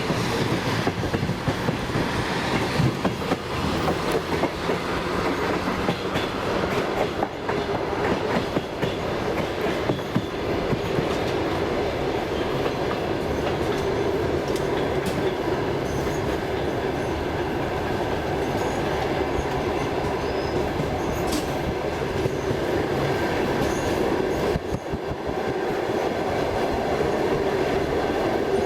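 Passenger train running on the rails: wheels clattering over rail joints and points, with many sharp knocks in roughly the first ten seconds, then settling into a steadier rumble.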